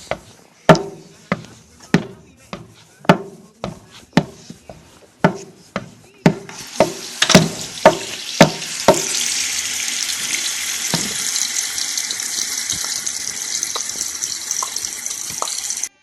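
Footsteps on a hard floor, walking at a steady pace of about two steps a second. About six seconds in, a steady high hiss starts and holds under the steps until the sound cuts off.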